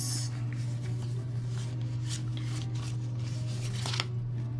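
Paper sticker sheets being handled and leafed through, with soft rustles and a few light clicks and taps, the sharpest near the end. A steady low hum runs underneath.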